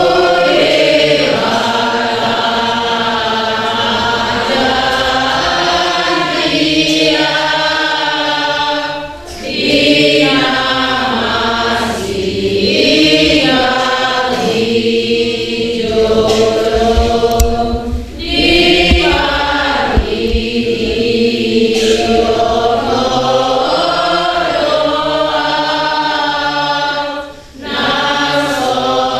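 A church congregation singing a hymn together, many voices in long sustained phrases broken by brief breaths about every nine seconds.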